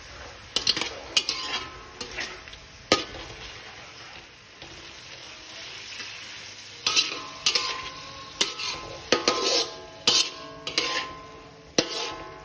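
Metal spatula scraping and knocking against a metal wok as meat is stir-fried, each strike with a brief metallic ring, over a low frying sizzle. The strikes come in clusters, a few near the start and many more in the second half.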